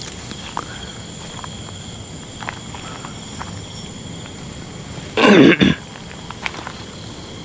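Steady high-pitched insect drone with faint scattered ticks of footsteps on the trail. About five seconds in, a person gives a short, loud cough.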